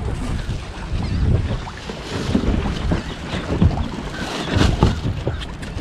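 Wind buffeting the microphone with a steady low rumble, over scattered light knocks and rustles of gear being handled in and around an inflatable dinghy moored at a floating dock.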